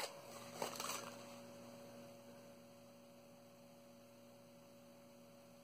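Near silence with a faint steady hum. A brief soft rustle comes about half a second in.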